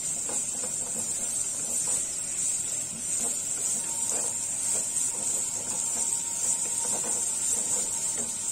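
Sliced onions sizzling steadily in hot oil in a non-stick kadai, being fried for beresta, with a wooden spatula stirring and scraping them in irregular soft strokes.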